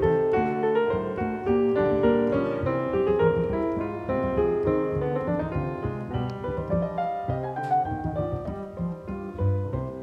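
Background piano music, a continuous flow of notes.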